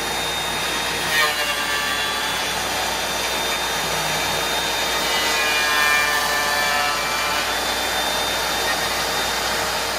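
DeWalt benchtop thickness planer running under load, its cutterhead planing a glued-up reclaimed American chestnut panel as it feeds through. A loud, steady machine noise with a slightly wavering pitch, stopping just after the end.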